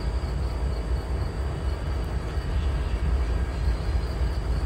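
Norfolk Southern diesel locomotive running as it moves slowly down a yard track: a low, steady rumble.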